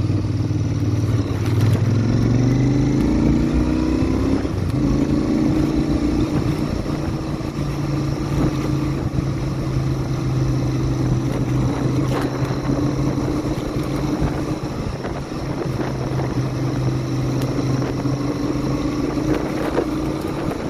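Royal Enfield Interceptor 650's stock 648 cc parallel-twin engine and exhaust running under way, the engine note rising a couple of seconds in and then holding steady.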